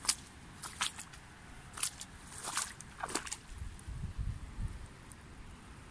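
Footsteps brushing through grass and reeds at a waterlogged bank edge, a step about every three quarters of a second, with a low rumble on the microphone around the middle.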